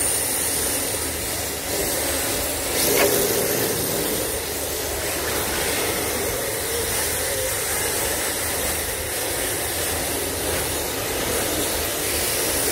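Steady hiss of RC drift cars' tyres sliding across a tiled floor, with a short sharp click about three seconds in.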